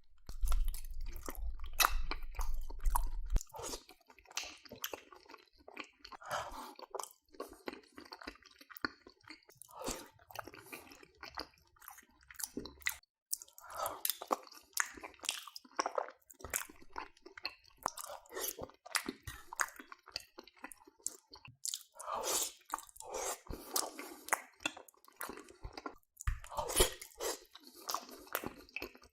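Close-miked eating of macaroni and cheese: irregular wet chewing, smacking and small clicks of a mouth working on the food. A low rumble sits under the first three seconds.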